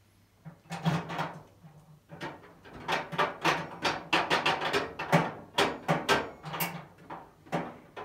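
Handling noise while unpacking a roller cab tool chest: a quick, irregular run of knocks, clicks and rustles from parts and packaging being moved, busiest in the middle.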